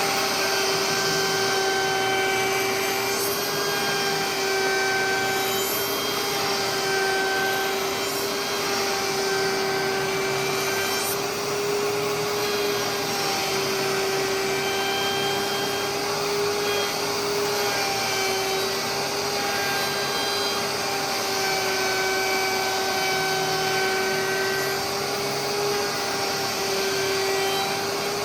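Router with a round-over bit running at a steady high-pitched whine while it rounds over the edges of a plastic part, the pitch wavering slightly as the cut loads the motor.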